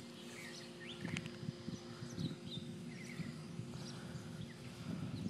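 Faint backyard ambience: scattered bird chirps over a steady low hum, with soft rustling and knocks from a puppy moving about on the grass near the microphone, the knocks clustering about a second in and again near the end.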